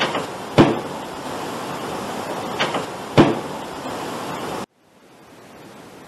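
Boosted recording hiss with a small glass knocking twice, a faint tick then a sharper knock about half a second later: a glass shifting and then dropping. The same pair of knocks is heard twice. The hiss cuts off suddenly near the end.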